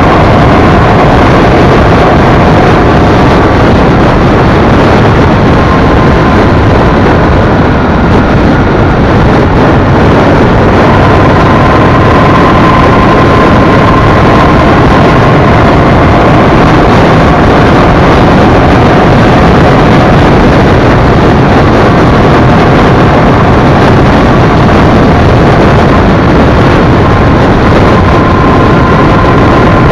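Honda Shadow V-twin cruiser motorcycle riding along at steady speed: a loud, continuous rush of engine, wind and road noise, with a faint high whine that comes and goes.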